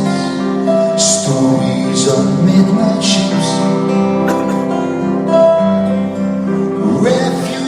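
Live rock band playing an instrumental passage: guitar over held chords, with cymbal hits recurring about once a second.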